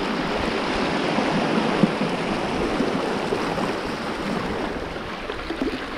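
Small sea waves washing steadily at the water's edge.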